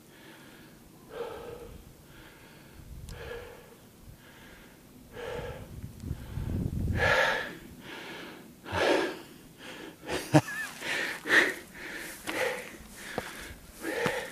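A man breathing hard from the exertion of climbing steep wooden steps, one heavy breath about every second, the breaths coming quicker in the last few seconds.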